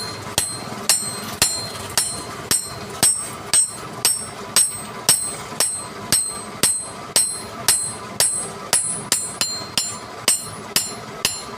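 A hammer striking metal in a steady rhythm, about two blows a second, each blow leaving a short, bright metallic ring.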